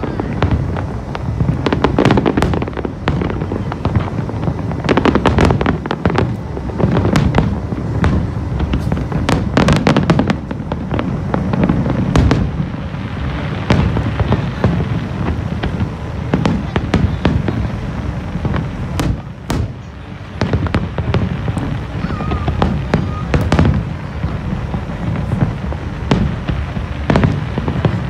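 Aerial fireworks display: a rapid, continuous barrage of shell bursts and crackling, the bangs overlapping with hardly a pause.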